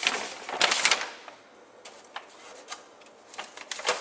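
Large blueprint sheets rustling and crinkling as a page of the plans is turned: a long rustle about half a second to a second in, a few short crackles, then a cluster of sharp crackles near the end.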